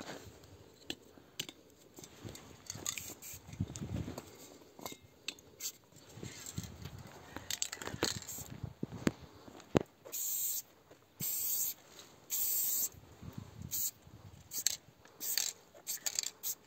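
Aerosol spray-paint can spraying in bursts of hiss, two of about a second each around the middle and shorter puffs near the end, among scattered clicks, knocks and handling rustles.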